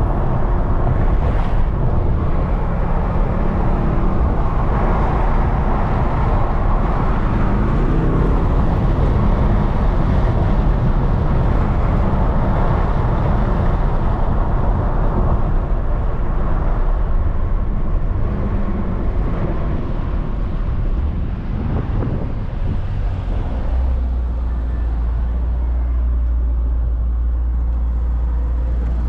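Mercedes-AMG GT63 S twin-turbo V8 under way with heavy road and tyre noise. The engine note rises briefly about eight seconds in, and a steady low drone takes over near the end.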